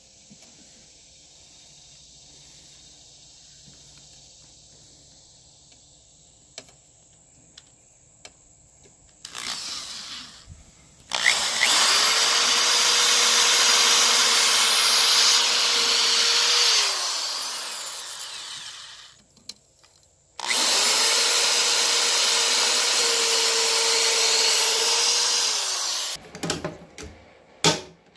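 Cordless drill boring through aluminium angle in two runs of about six seconds each, the motor spinning up at the start of each run and winding down at the end. It is drilling the holes for pop rivets on the frame of the grizzly bars.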